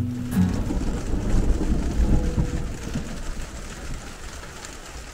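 A roll of thunder rumbling low, loudest about a second or two in and then dying away, with rain falling on a motorhome roof.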